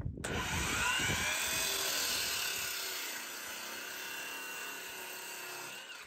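DeWalt sliding compound miter saw: the motor spins up with a rising whine, then the blade is pulled down through a 2x12 lumber board, trimming it to length. The whine winds down near the end.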